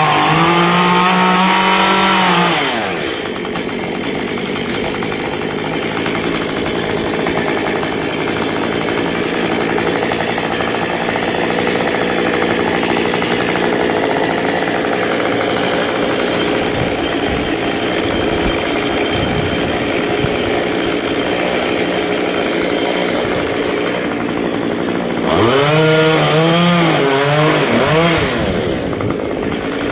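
Chainsaw cutting into a pine trunk. It runs at full throttle with a wavering pitch for the first two or three seconds and again for a few seconds near the end, and runs more slowly and steadily in between.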